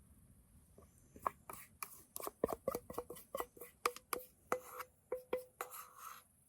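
A quick series of light knocks on a hard surface, about three or four a second, each with a short ringing tone after it, starting about a second in and stopping near the end.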